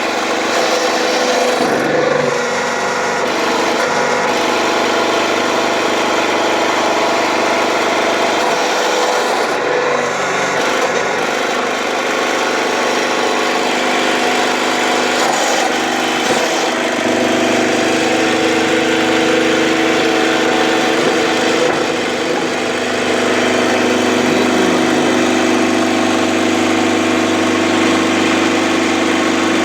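Motor of a Lego-brick press running continuously, a steady hum under a dense rubbing, grinding noise, its tone shifting a few times as the press works.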